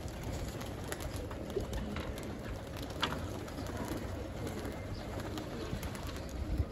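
A flock of domestic pigeons cooing, with a few sharp wing claps as birds take off from and land on a perch.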